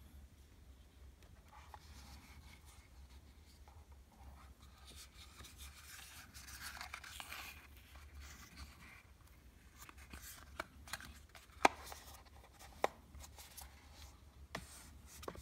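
Small cardboard eyelash boxes being handled by hand. There is a soft rustle and scrape as a box is slid out and its flip lid opened, then several sharp light clicks and taps as boxes knock together and are set back in the row.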